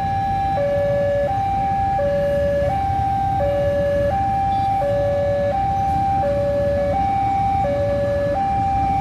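Two-tone electronic warning alarm alternating steadily between a high and a low tone, each held for about three-quarters of a second, at constant pitch and loudness, over a low rumble.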